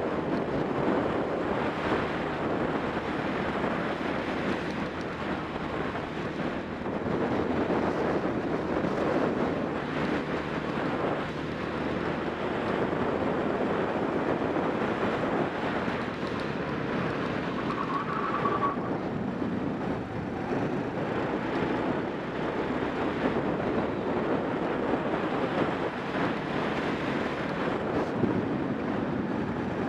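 Racing kart engine running at speed through laps, heard from an onboard camera with wind rushing over the microphone and covering much of the engine.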